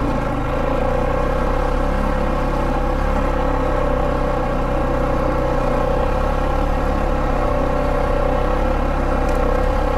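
Polaris Sportsman 570 ATV's single-cylinder engine running at a steady speed while riding, holding one even note throughout.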